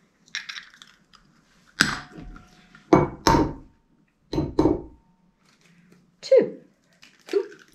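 Egg knocked several times against the rim of a small glass bowl. Some knocks leave a brief glassy ring, and a few softer cracks of the shell being broken open follow near the end.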